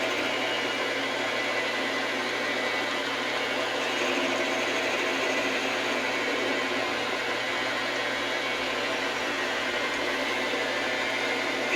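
Metal lathe running steadily under power, turning a steel bar for a vise handle, with a brighter hiss joining about four seconds in.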